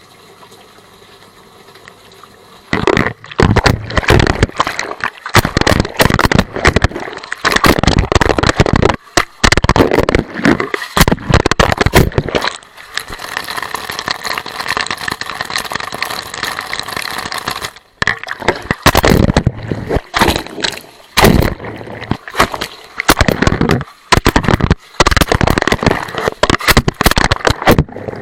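Water sloshing and gushing in a washing machine, in loud irregular surges with brief gaps, starting about three seconds in after a low quiet hum.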